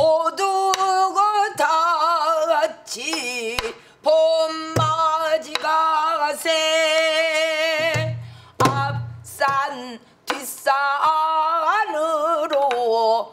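A woman sings a Korean folk-style spring song in a full pansori voice. She holds long notes with a wide, wavering vibrato, in phrases of a few seconds, and a few low thumps fall between the phrases.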